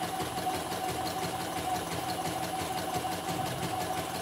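Portable computerized embroidery machine stitching a design, its needle running in a steady, rapid, even rhythm. It is running smoothly after servicing.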